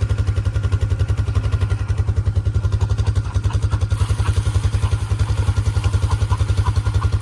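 A small engine idling steadily, with a rapid, even low thumping of roughly nine or ten beats a second.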